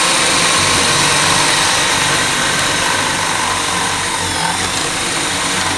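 Two cordless drills, a Bosch 12V and a DeWalt, running flat out at the same time, each boring a 3/4-inch spade bit through a wooden board: a steady motor whine over the rough shredding of the bits cutting wood.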